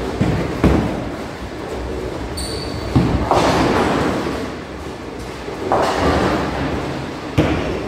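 Bowling balls rolling down the lanes with a low rumble, broken by sharp thuds, with pins crashing and clattering about three seconds in and again around six seconds.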